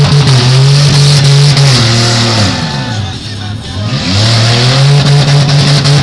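Demolition derby car engines revving hard under load. The revs sag about two and a half seconds in, then climb back up about a second later.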